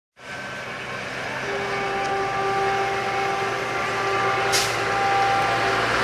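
Approaching express train hauled by a WCAM1 electric locomotive, its running noise growing steadily louder, with a faint steady hum held underneath from about a second and a half in. A brief hiss about four and a half seconds in.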